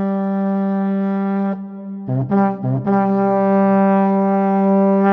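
Intro music: a brass-like instrument holds one long steady note, plays a few short notes about two seconds in, then holds a long note again.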